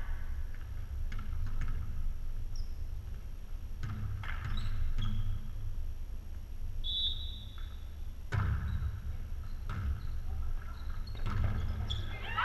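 Volleyball being played in a gymnasium: a steady low hum fills the hall, with sharp thuds of the ball being hit about four, eight and eleven seconds in. There are faint voices and a brief high squeak about seven seconds in.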